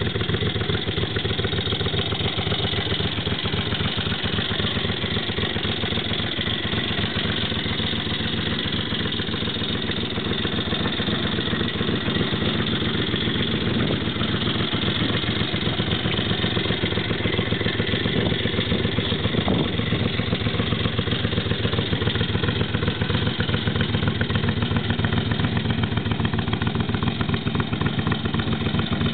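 Motorcycle engine idling steadily, with no revving.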